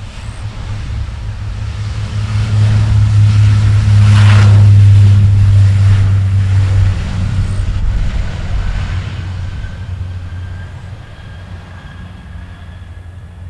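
Regional airliner passing close, its engines swelling to a loud peak about four to five seconds in and then fading away, with a strong low hum throughout.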